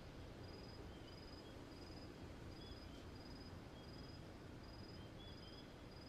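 Faint insect chirping: short high chirps repeating evenly about one and a half times a second, with scattered fainter, lower chirps over a low steady hiss.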